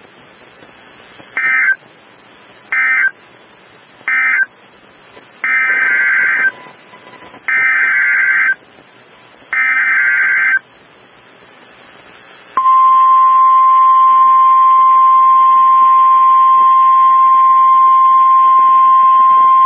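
Emergency Alert System data bursts: three short buzzy chirps followed by three longer, each about a second, the coded header tones that open an alert. About twelve and a half seconds in, the long steady attention tone of the tornado warning begins.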